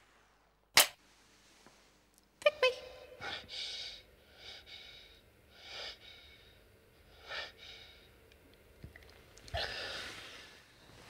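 A single sharp crack about a second in, then a man waking with a start: a short gasp, then heavy breathing in audible puffs about once a second, with a longer breath near the end.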